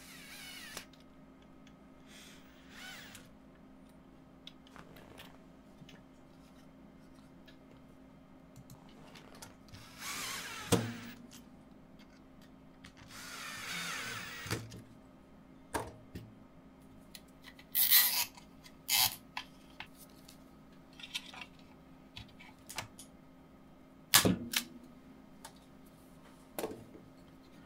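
Bosch cordless drill/driver running in several short bursts, the longest about a second and a half each, as it drives #10 wood screws through a 3D-printed motor bracket into a wood plank. Sharp knocks, the loudest sounds, come in between, and there are two brief high rasps about two-thirds of the way in.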